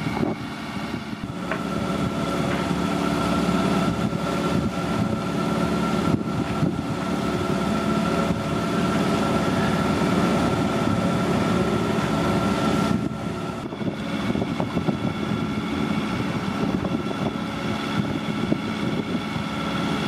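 A boat's engine running steadily under way, with its tone shifting about 13 seconds in.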